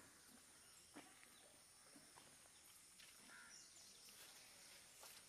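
Near silence: faint outdoor ambience with a steady high hiss and a few faint clicks.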